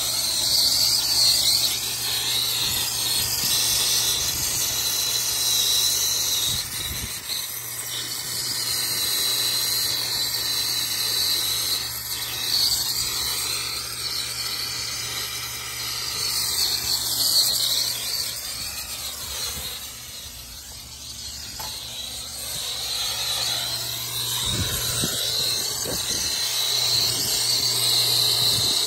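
Brazing torch flame hissing steadily as copper refrigerant line joints are brazed with silver-bearing solder, over the steady hum of a neighbouring rooftop condenser that is running.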